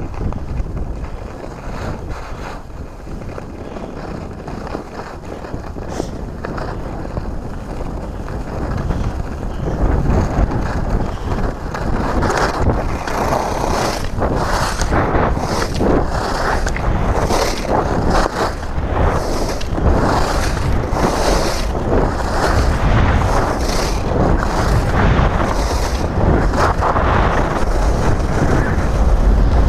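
Wind buffeting the camera microphone as a skier descends, growing louder about a third of the way in as speed picks up. Over it, skis scrape and hiss on packed snow in linked turns, a little more than one surge a second.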